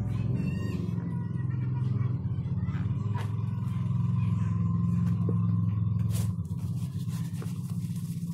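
A low, steady rumble with a few light handling clicks. About six seconds in the rumble drops away, and a soft, rapid rustle of tissue rubbing over the phone takes over.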